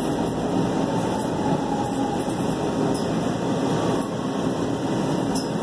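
Metro Red Line subway train running steadily, heard from inside the passenger car: an even rush and rumble of wheels on rail and air in the car.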